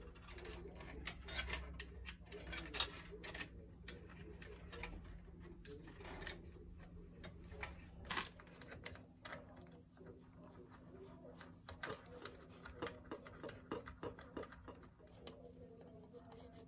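Irregular small clicks and taps of a metal CPU cooler backing plate and its mounting hardware being handled and fitted around an LGA 1700 motherboard socket, over a faint low hum.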